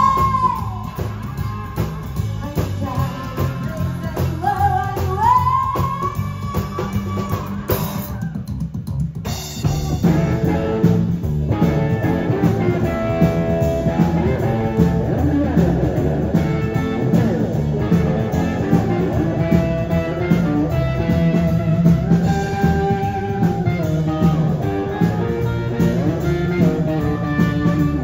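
Live rockabilly band playing: hollow-body electric guitar, upright bass and drums, with a woman singing. The sound briefly drops out about eight seconds in, at a cut to another performance, then the band carries on.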